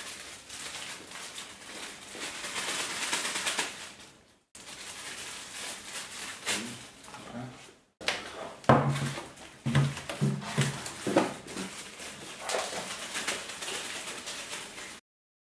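Unpacking noise: rustling plastic wrapping and styrofoam packing being handled, with clicks as microscope parts are lifted out. A run of short squeaks comes in the middle, typical of styrofoam rubbing. The sound breaks off abruptly twice.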